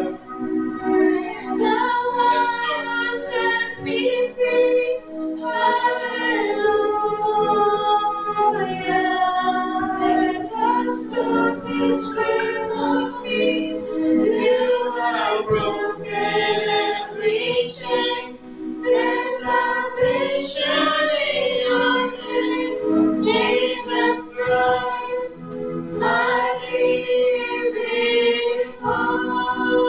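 Live worship band playing a praise song: several women singing together into microphones over electric and acoustic guitars and bass guitar.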